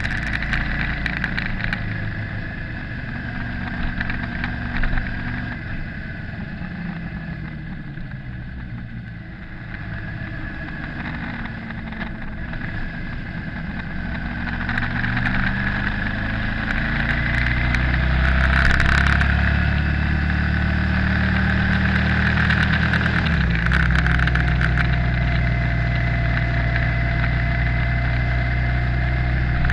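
Motorcycle engine running while riding along a country road, with wind and road noise. The engine note rises and grows louder as it speeds up in the second half, then changes abruptly about two-thirds of the way through, as at a gear change.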